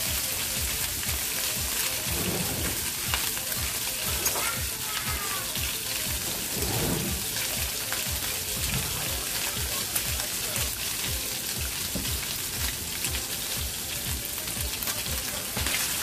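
Flaked salted herring frying in hot oil in a nonstick skillet: a steady sizzle with a scatter of small pops. The fish is being fried until it is dry.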